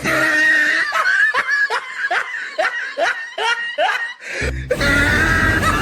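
Laughter sound effect: a run of short snickers, each rising in pitch, about three a second, breaking off about four seconds in. A low rumble comes back near the end.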